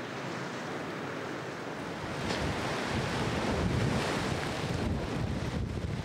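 Sea waves washing against the shore, with wind buffeting the microphone; the surge builds about two seconds in and eases toward the end.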